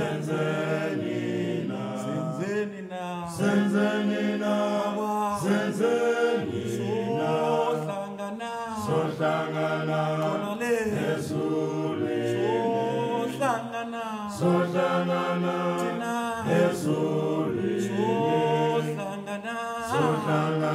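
Choral music: a group of voices singing in harmony.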